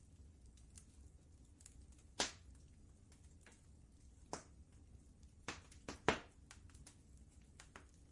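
Wood fire crackling: scattered sharp pops and snaps at irregular intervals, the loudest about two seconds in and around six seconds in, over a faint low steady rumble.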